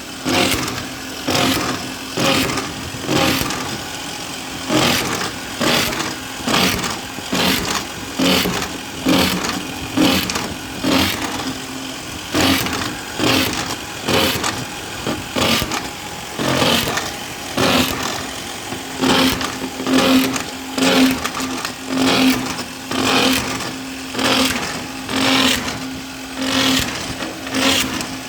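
Mini hydraulic drill machine running: a steady motor hum under loud rhythmic pulses about once a second.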